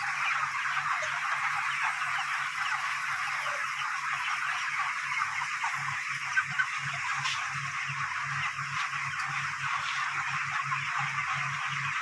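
A large flock of broiler chickens in a shed, a dense steady chatter of cheeping, over a low pulsing machine hum that beats about three times a second and grows clearer partway through.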